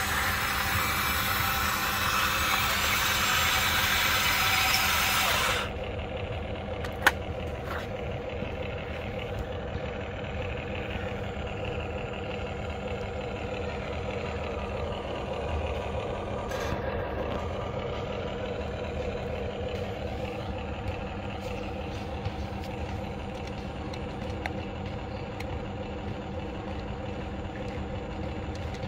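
Huina remote-control excavator running: a steady mechanical hum throughout, with a loud hiss over it for the first five or six seconds that cuts off abruptly, and one sharp click about seven seconds in.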